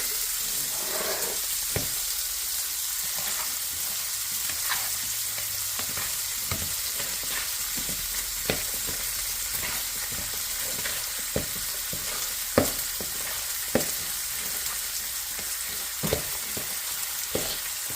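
Bacon frying in a pan: a steady sizzle, with short sharp pops or clicks every second or two.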